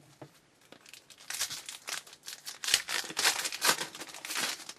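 Wrapper of a trading card pack being torn open and crinkled, a dense crackle that starts about a second in and runs until just before the end.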